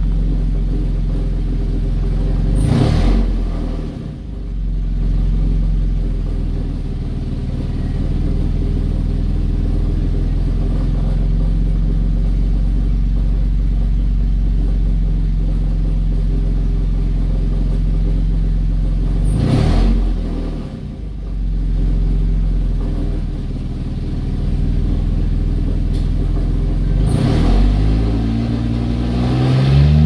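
2009 Toyota Camry's 3.5-litre V6 running, heard from inside the cabin, with brief louder surges about 3 and 19 seconds in and the pitch rising as it revs near the end. The engine has a misfire and no-power complaint that looks to come from diesel put in the tank.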